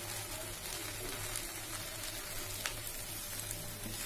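Chopped okra frying in oil in a kadai, a steady soft sizzle, with one small click about two-thirds of the way through.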